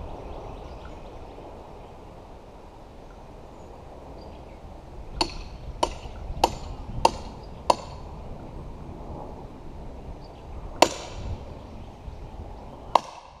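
Sledgehammer striking steel felling wedges driven into the back cut of a tree, to crush the fibres and weaken the trunk. Five sharp strikes in quick succession, about 0.6 s apart, about five seconds in, then a single strike a few seconds later and another near the end.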